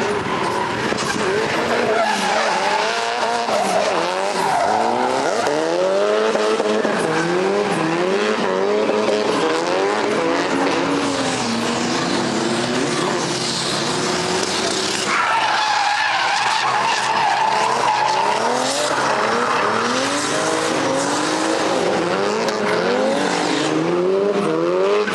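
Drift cars sliding sideways through the corners: engines revving up again and again as the throttle is worked, over continuous tyre screech. A steady high tyre squeal holds for a few seconds past the middle.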